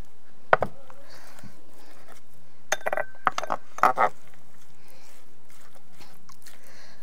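Large kitchen knife chopping and rocking through minced mutton on a wooden cutting board: a few scattered knocks of the blade against the board, the loudest about four seconds in.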